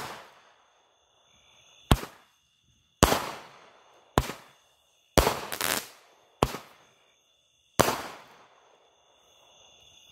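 Aerial fireworks going off in a string of about eight sharp bangs, roughly a second apart and not evenly spaced, each with a short echoing tail. Crickets trill steadily underneath.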